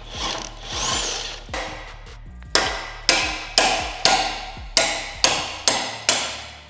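A sledgehammer striking the end of a seized drive shaft in a rear wheel hub to drive it out: about eight sharp blows, roughly two a second, beginning about two and a half seconds in.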